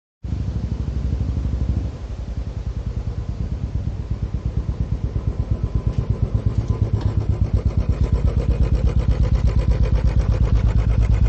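A small motor running with a rapid, even beat that starts abruptly and grows a little louder after about two seconds.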